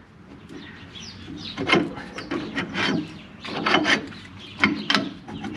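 A tight-fitting, greased 24 mm steel pin being pushed and twisted into the bore of a Fendt tractor's hitch jaw: metal rubbing on metal in about four short, irregular bursts.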